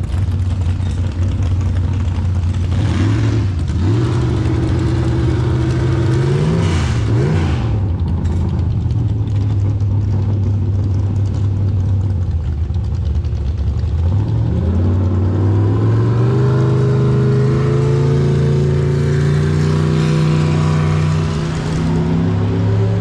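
Mini rod pulling tractor's engine running. It revs up about three seconds in and is blipped twice, then runs steady. About fourteen seconds in it climbs in pitch and holds at higher revs.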